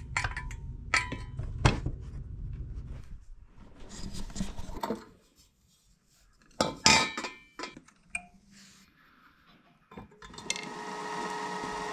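Metal clinks, taps and scrapes of steel jet-engine parts being handled and fitted together: a screwdriver working a hose clamp and the combustor casing knocking into place. Near the end a steady hum with several tones sets in.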